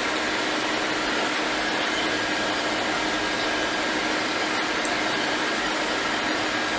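Hot air rework station blowing steadily, an even fan-driven hiss with a faint steady hum, as it heats a donor logic board to desolder its capacitors.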